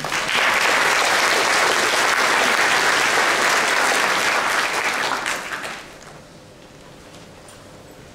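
Audience applauding, starting right away and dying away about six seconds in.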